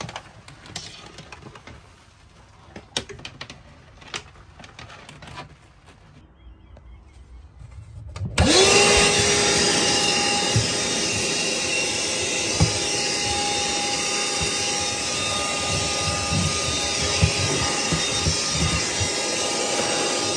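A few light clicks and knocks, then about eight seconds in a Ryobi cordless hand vacuum switches on. Its motor whines up to speed and runs steadily with a loud rush of air, with a few sharp ticks as bits of cut wire insulation are sucked up off the floor.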